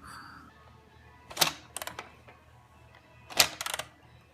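Plastic toy clatter: sharp clicks and knocks as toy trains move on a plastic Thomas and Friends Action Tracks playset. There is one knock about a second and a half in, and a quick run of clicks around three and a half seconds in.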